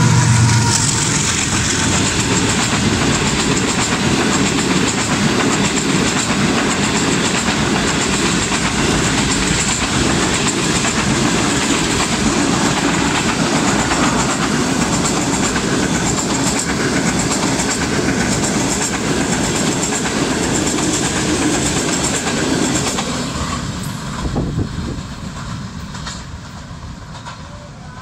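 Passenger coaches of an express train rolling past at close range, a loud steady rumble of wheels on rails that fades away near the end as the train goes by.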